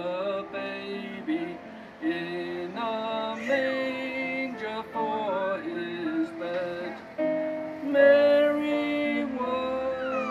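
A community choir of men and women singing together, holding notes in several voices at once, with short breaks between phrases.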